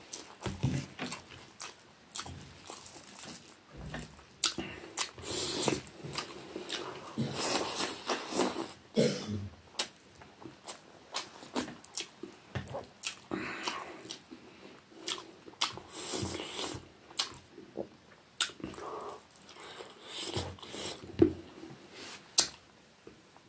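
A person chewing a mouthful of rice and fish curry: wet chewing and lip smacks with many short clicks, coming irregularly, louder in a few clusters.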